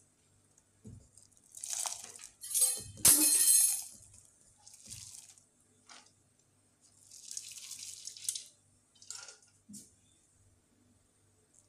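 Banga (palm fruit) sauce sloshing and swishing in a metal pot as it is stirred with a wooden spoon, in several separate strokes, the loudest about three seconds in.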